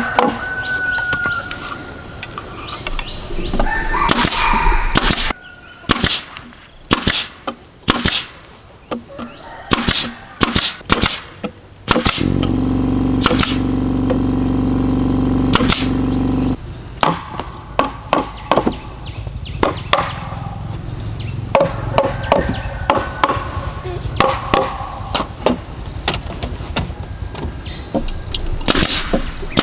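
Pneumatic nail gun firing nails into bamboo poles, a series of sharp shots at irregular intervals, with the hollow bamboo knocking as the poles are handled. A steady hum runs for about four seconds midway.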